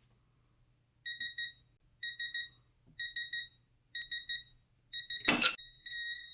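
A Quinn digital torque adapter gives its torque alert: clusters of three or four quick high beeps about once a second as a DeWalt quarter-inch drive ratchet is loaded past the set torque. About five seconds in there is one sharp metallic crack as the ratchet's drive anvil shears off at 81.5 ft-lbs, and the beeping carries on in longer tones.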